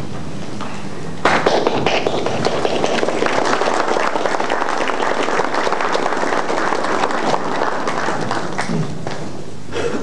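Audience applauding: the clapping starts suddenly about a second in, holds steady, then thins out near the end.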